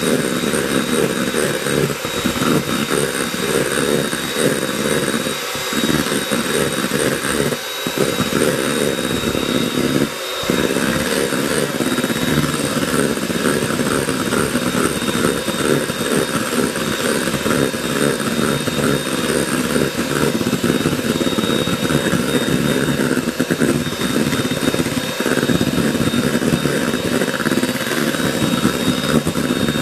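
Electric hand mixer running steadily, its twin beaters whipping egg whites in a stainless steel bowl toward stiff peaks, with a steady high motor whine. The low hum dips briefly three times in the first ten seconds or so.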